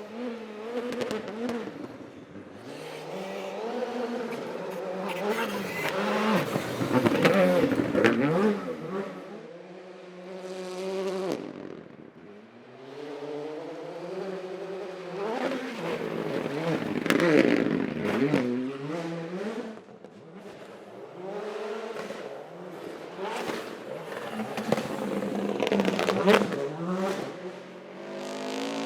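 Rally car engine revving hard, its pitch climbing and dropping again and again with gear changes and lifts off the throttle, swelling loudest three times as it passes through.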